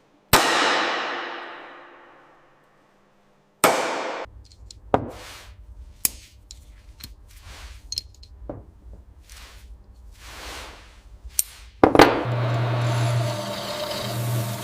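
A loud metallic clang rings out and fades over about two seconds, then a second clang is followed by a string of lighter metal knocks and swishes over a low hum. Near the end another loud impact is followed by a machine starting to run steadily.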